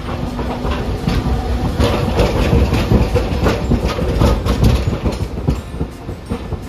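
Hiroshima Electric Railway 800-series streetcar rolling slowly past over the terminal's pointwork, a low rumble under clicks and clatter from the wheels on rail joints and points. It is loudest in the middle as the car passes closest, then fades.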